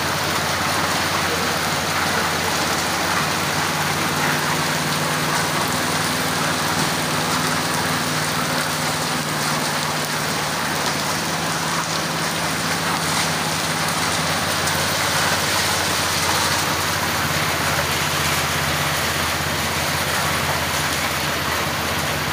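Heavy rain pouring steadily, with a faint low steady hum underneath.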